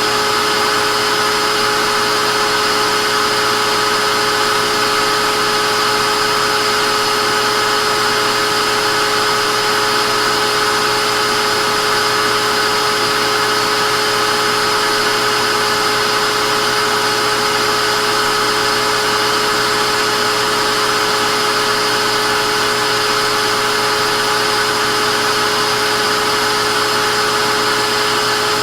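Vacuum cleaner running steadily: an even rushing noise of the suction motor with a constant high whine over it, no change in speed.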